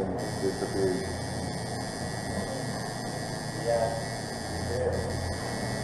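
Electric tattoo machine running with a steady low hum while its needle works into the skin. Faint voices come in briefly a couple of times.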